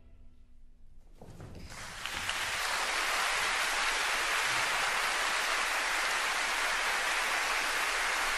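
A moment of quiet, then audience applause building from about a second in and holding steady.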